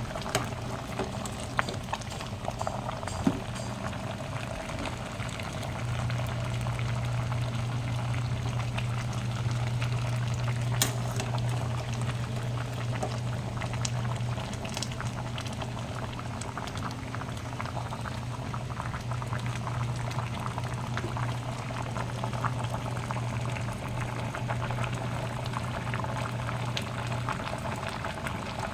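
Pot of kare-kare stew bubbling at a boil, a steady crackle of popping bubbles. A low steady hum runs under it from about six seconds in until near the end.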